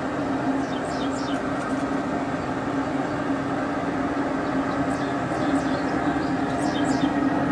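Camp Chef pellet smoker running at heat, its fan giving a steady low hum, with scattered faint high ticks.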